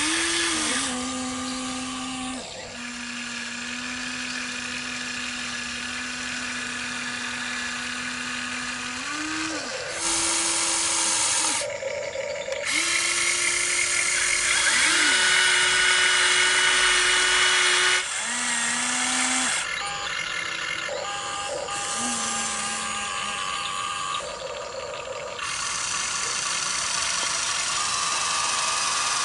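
Electric motors and gearboxes of a Huina RC excavator whining as the boom, arm and bucket move in turns, each move starting and stopping with a step in pitch, over a constant gear grind.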